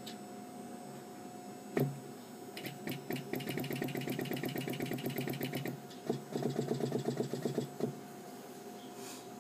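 Pneumatic stack of a Seeburg Model K player piano, its pneumatics clicking open and shut in rapid repetition, about ten clicks a second, in two runs lasting a few seconds each. A single sharp click comes just before the first run.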